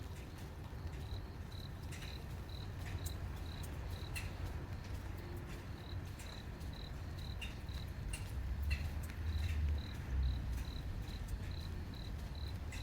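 A cricket chirping steadily, a run of short high chirps at about three a second, over a low rumble with scattered faint clicks.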